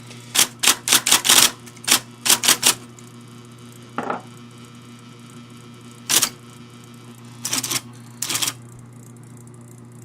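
IBM Selectric electric typewriter typing in quick runs of keystrokes and then single strikes, with a steady low hum underneath. It is typing the wrong characters instead of the words keyed in, a fault the owner suspects lies in the whiffletree linkages.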